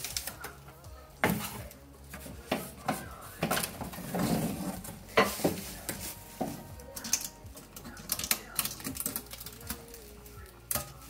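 Packing being pulled out of a new microwave oven: cardboard inserts scraping and rustling, and metal wire racks clinking and knocking against the steel cavity, in a run of short clatters with a longer scrape about four seconds in.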